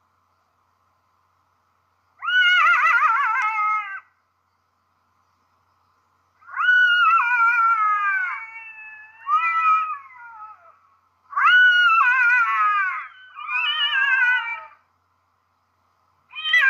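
Black-backed jackal calling: five high, wailing calls with a quavering pitch, several falling away at the end, the first alone and the rest in two pairs.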